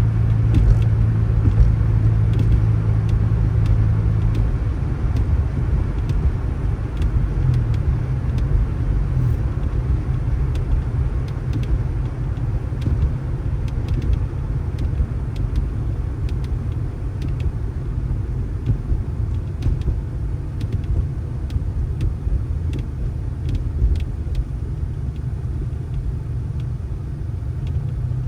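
Motor vehicle running with a steady low engine rumble and road noise; the strongest engine hum drops away a few seconds in.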